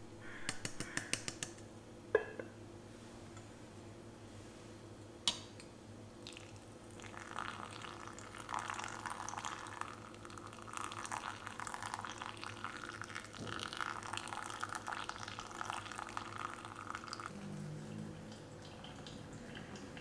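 Water tap running into a sink for about ten seconds, after a few light clicks and two sharp knocks in the first few seconds.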